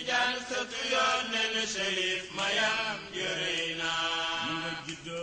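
Male voices chanting a Sufi devotional praise song in a repeating refrain, with long drawn-out sung notes.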